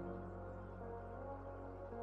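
Soft ambient background music: a steady low drone under held synth-pad chords, with one note gliding up about a second in.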